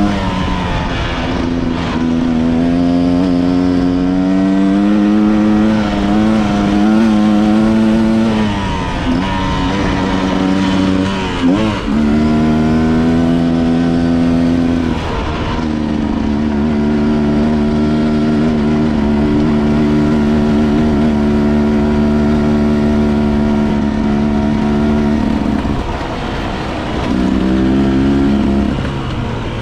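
Enduro motorcycle engine running as the bike rides. Its note holds steady for stretches and drops and climbs again with throttle and gear changes, about ten seconds in, at about fifteen seconds and again near the end.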